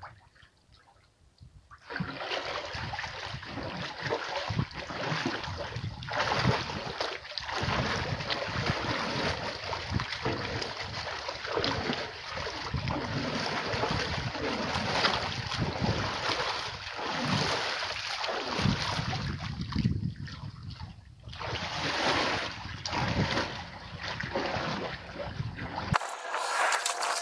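Repeated splashing and sloshing of water as a man wading waist-deep beats and pushes the surface with his hands and arms, driving fish toward a stretched net. It starts about two seconds in, with a short lull near the end.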